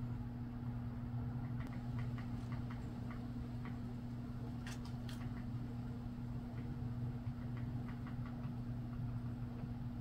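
Steady low mechanical hum, like a motor or fan running, with faint scattered ticks and two sharper clicks about five seconds in.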